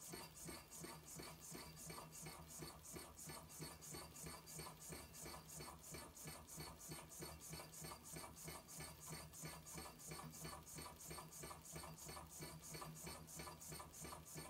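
Hot-air model engine of the Reichelt 'Barock' design running: a faint, even mechanical ticking, about five ticks a second, over a low steady hum.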